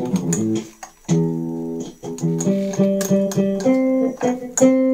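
Yamaha keytar played with an acoustic guitar voice: plucked-sounding single notes, a short break about a second in, then a held chord followed by a string of further notes and chords.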